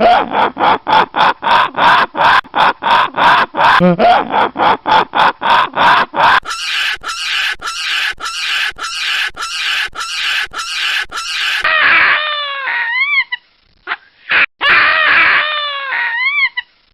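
Baboons calling: a rapid run of short calls, about four a second, for several seconds, then a few drawn-out screams that rise and fall in pitch.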